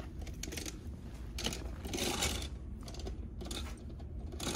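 Plastic toy packages rattling and rustling as they are handled off a store shelf, in irregular bursts, over a low steady hum.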